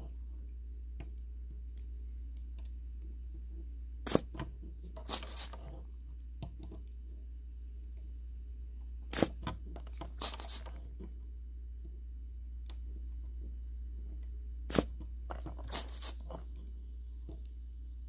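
Desoldering tool working on the solder joints of a chip's pins on an amplifier circuit board. Three times, about five seconds apart, a sharp click is followed a second later by a brief hissing burst, over a steady low hum.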